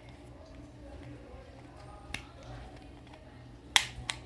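Scissors snipping through the plastic packaging of a new coin cell: a sharp click about two seconds in and two quick ones near the end.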